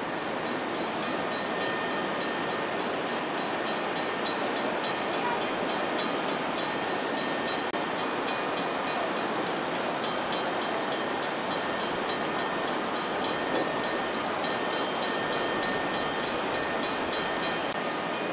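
Steady roar of fast-flowing floodwater churning through flooded streets and brush.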